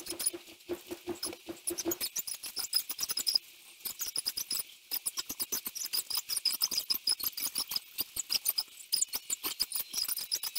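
The sounds of a home workout played back at sixteen times speed, compressed into rapid high-pitched squeaks and ticks, many a second.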